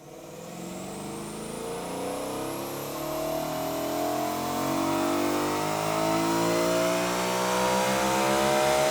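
BMW E92 M3's 4.0-litre V8 pulling on a dyno, its engine and intake note climbing steadily in pitch and growing louder as the revs rise through one long run.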